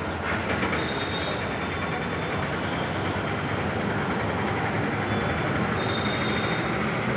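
Steady, dense mechanical running noise with a low hum underneath.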